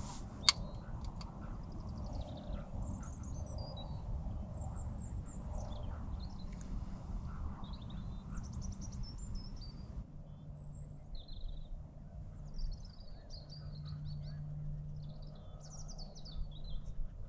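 Small birds chirping and trilling over and over, with a low wind rumble on the microphone in the first half and a faint steady low hum later on. A single sharp click about half a second in.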